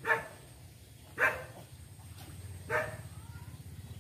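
A dog barking: three single barks roughly a second and a half apart.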